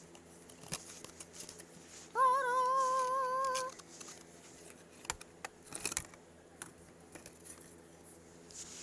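Cardboard and plastic packaging being handled and opened, with sharp clicks and rustles. About two seconds in, a voice sings one held note for about a second and a half.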